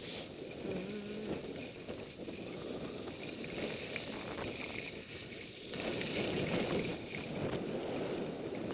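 Skis sliding and scraping over groomed snow at speed, with wind rushing over the microphone; the rush grows louder about six seconds in.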